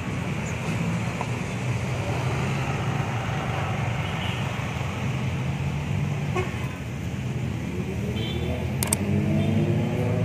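Diesel coach bus engines running in slow street traffic, with a steady low hum. Near the end one engine rises in pitch as a bus pulls away.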